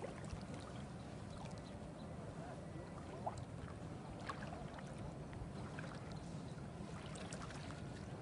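Small boat on a lake: water splashing and dripping in scattered small ticks over a steady low rumble.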